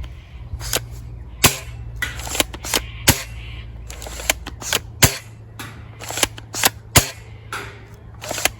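Toy M97 pump-action gel blaster shotgun firing: four sharp pops about two seconds apart, the last the loudest. Lighter clicks of the pump being cocked come between the shots, over a steady low hum.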